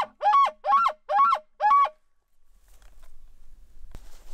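Hunter's elk bugle call blown through a camouflage bugle tube, finishing with five short chuckle grunts about half a second apart, each bending down in pitch. It imitates a bull elk's bugle to draw an answer from a nearby bull.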